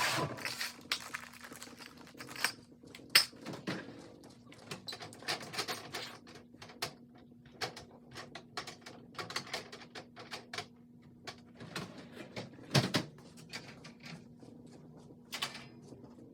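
Irregular clicks and knocks of objects being handled, over a faint steady hum; the sharpest knocks come about three seconds in and again near thirteen seconds.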